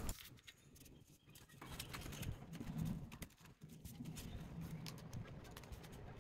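Faint, scattered light taps and rustles of paper and plastic sheets being handled, as the pages of a spiral-bound sticker album are leafed through.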